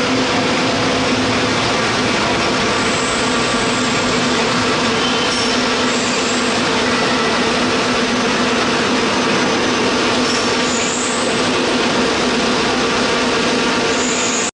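Industrial vegetable dicing machine and its belt conveyors running steadily while dicing cabbage: a constant mechanical clatter over a steady motor hum. It cuts off suddenly at the end.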